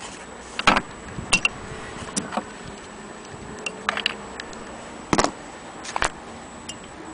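Irregular handling knocks and clicks, about seven in all, as an antique hand-crank sewing machine and a thread spool are handled. The loudest come near the start and about five seconds in.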